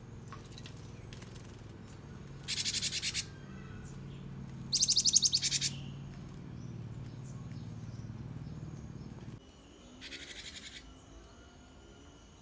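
Caged cinereous tit (gelatik batu) calling three short, rapid trills, each about a second long: a fast run of high, sharp repeated notes. A low hum underneath stops suddenly about nine seconds in.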